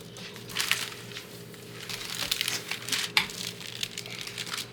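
Irregular crinkling and crackling handling noise with many small clicks.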